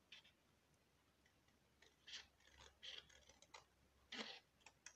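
Scissors snipping through cardstock: a series of faint, short cuts starting about two seconds in.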